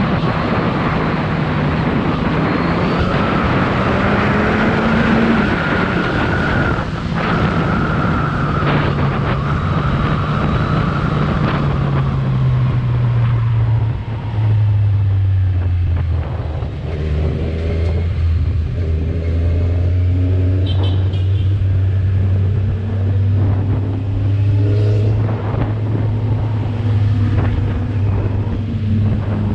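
Kawasaki Z1000R's 1043 cc inline-four on its stock exhaust, riding under way. The engine note climbs over the first few seconds, drops back, then settles into a steady lower drone.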